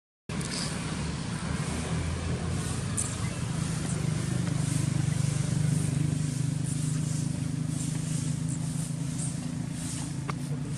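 A motor vehicle's engine running with a steady low hum, growing to its loudest about halfway through and then holding.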